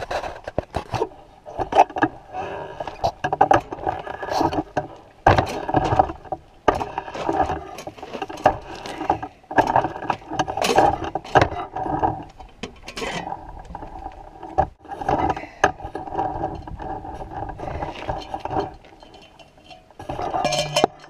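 Objects being handled: repeated irregular scraping and rubbing strokes, some with a squeaky tone, mixed with clicks and rattles, with a lull near the end.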